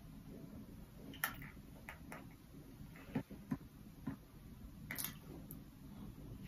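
Faint, scattered light clicks and taps, about nine of them at uneven intervals, over a low steady room hum.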